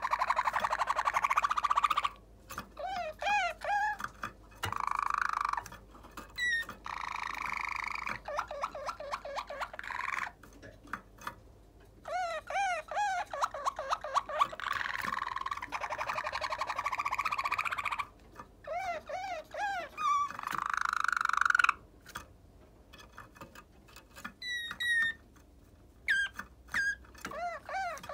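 Waterslager canary singing: long song phrases of buzzing rolls alternating with chains of quick, repeated rising-and-falling notes, broken by short pauses of one to two seconds.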